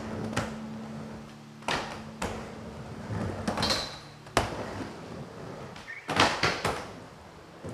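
Skateboard riding a wooden mini ramp: wheels rolling on the plywood, broken by sharp clacks of the trucks and board hitting the coping and landing. There is a short scraping grind a little over three seconds in, and the loudest cluster of hits comes about six seconds in.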